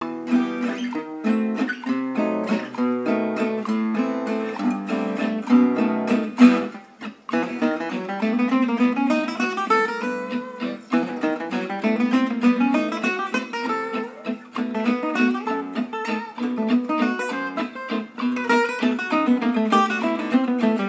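Background music played on plucked acoustic guitar, with a short break about seven seconds in.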